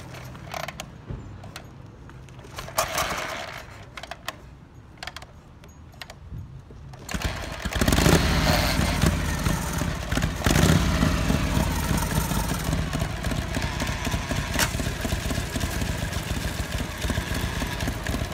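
Kick-started custom Harley-Davidson chopper's V-twin: a few short mechanical clacks, then the engine catches about seven seconds in. It is revved up twice and settles into steady running.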